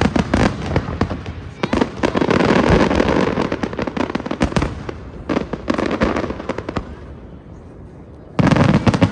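Fireworks display: rapid bangs and crackling from aerial shells bursting, densest a couple of seconds in and thinning out, then a fresh loud salvo near the end.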